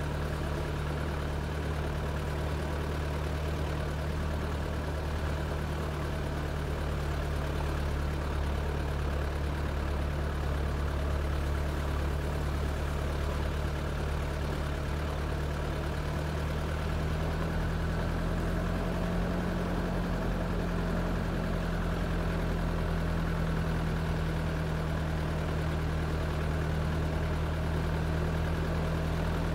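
An engine running steadily, its pitch rising slightly about seventeen seconds in and then holding.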